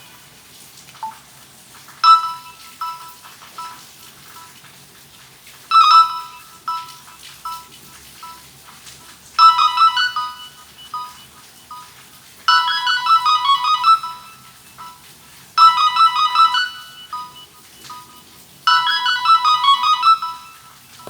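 Nokia ringtone played through a Samsung SGH-A157 flip phone's speaker. A short phrase of quick electronic notes repeats about every three to four seconds, with a few softer notes trailing after each.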